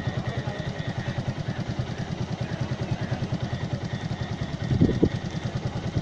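An engine idling nearby with a rapid, even low beat, and a brief louder burst about five seconds in.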